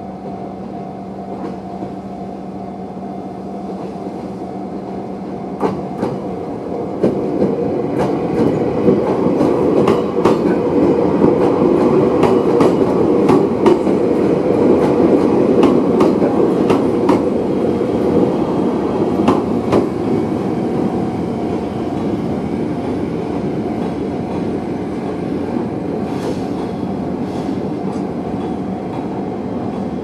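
Level-crossing warning bell ringing with a steady electronic tone while a Chichibu Railway 7500 series electric train passes, its wheels clicking over the rail joints; the rumble swells from about six seconds in and is loudest midway. A freight train of hopper wagons is rolling through the crossing near the end.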